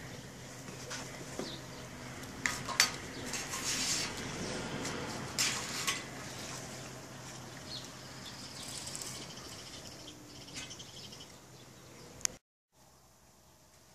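Handling noise from a plastic twine roller hook: rustling and a few sharp clicks as the hook and its twines are pulled and adjusted, over a steady low hum. The sound cuts off abruptly about twelve seconds in and returns much quieter.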